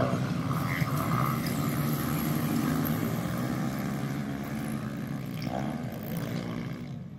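Several pit bike engines running together in a steady drone, slowly getting quieter.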